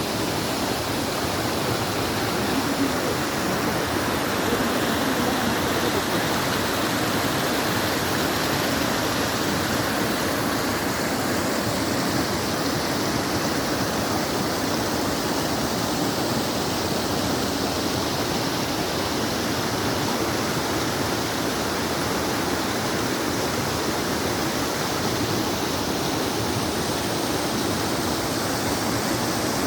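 Rushing water, a steady unbroken splash and hiss with no pauses.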